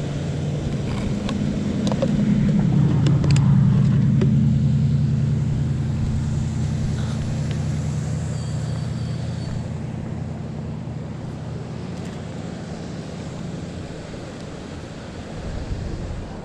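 A motor vehicle passing by: a low engine hum that swells to its loudest about three seconds in, then slowly fades away. A few sharp clicks sound during the first few seconds.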